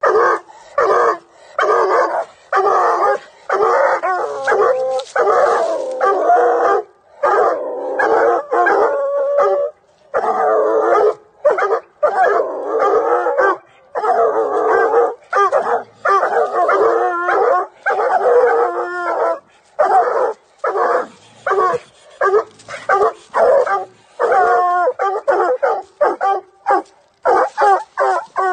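Young coonhound barking and bawling without let-up at a raccoon held in a live trap, loud short barks mixed with longer, wavering bawls.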